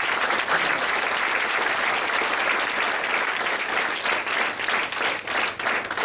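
Audience applauding, steady at first and thinning into scattered claps near the end.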